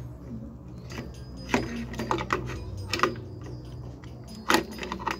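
Sharp clicks and light metallic taps, about half a dozen spread irregularly, the loudest about four and a half seconds in, from a soldering iron tip and a small push-button circuit board being worked and handled while its switch pins are desoldered. A low steady hum runs underneath.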